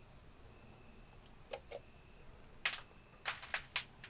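A few sharp metallic clicks and taps, about six of them in the second half, as a head gasket is worked loose and lifted off a MeMZ-245 engine block with the cylinder head removed.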